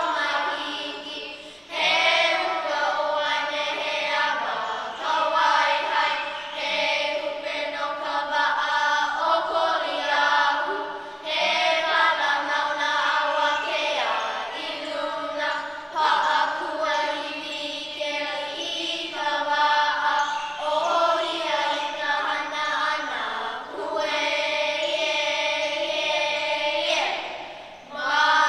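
A group of children chanting a Hawaiian oli in unison, in long held phrases with short pauses between them.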